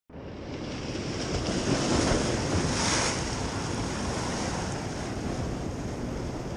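Ocean surf washing against the rocks of a jetty, with wind buffeting the microphone; a wave swells a little louder about two to three seconds in.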